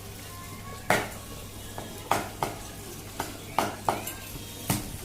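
Irregular sharp clinks and knocks of metal kitchenware or dishes, about seven in five seconds, each ringing briefly.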